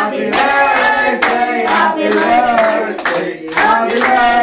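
A group of people singing a birthday song together, clapping their hands in rhythm.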